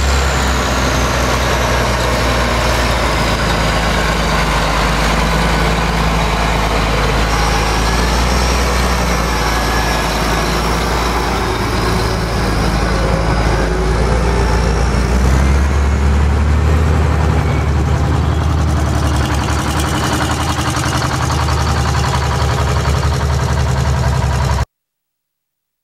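Terex TS-24 twin-engine scraper's diesel engines running, a loud, steady heavy drone with a faint high whine that rises and falls. The low drone grows heavier about two thirds of the way through, and the sound stops abruptly near the end.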